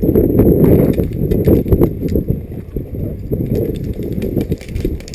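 Wind buffeting the microphone in a loud, rumbling rush, with scattered clicks and knocks over it, such as footsteps and gear moving.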